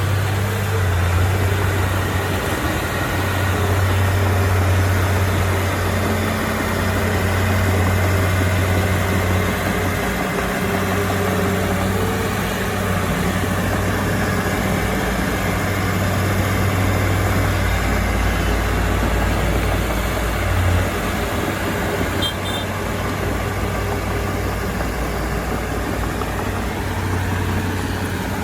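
Diesel engine of a Komatsu D31P crawler bulldozer running steadily, its low drone swelling and easing every few seconds, with a deeper rumble about two-thirds of the way in.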